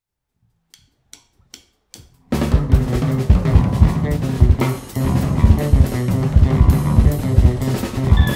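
Four evenly spaced count-in clicks, then drum kit, electric guitar and electric bass come in together about two seconds in and play a loud, rhythmic groove with many drum hits.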